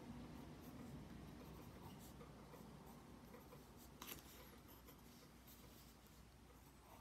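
Faint scratching of a pencil shading on gray sketchbook paper, with one short click about four seconds in.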